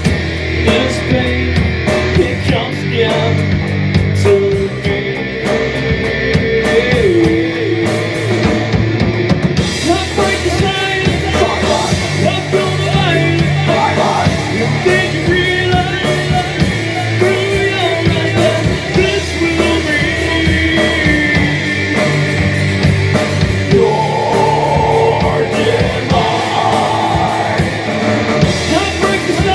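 Live rock band playing loud: electric guitar, electric bass and drum kit, with vocals over the band.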